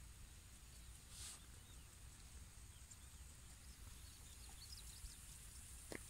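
Quiet outdoor ambience: a low rumble and a faint steady high hiss, with a brief rustle about a second in and a few faint bird chirps near the end.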